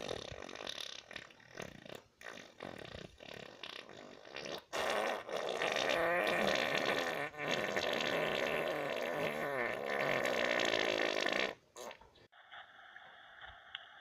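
Long run of crude, raspy, fart-like sputtering noises, broken by short gaps, that stops about eleven and a half seconds in.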